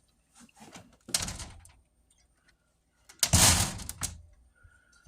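Aluminium storm door being worked against its frame: a few light knocks, a sharper knock about a second in, then a louder rattling bang about three seconds in as the door is pushed shut. The new latch is not quite catching on the strike.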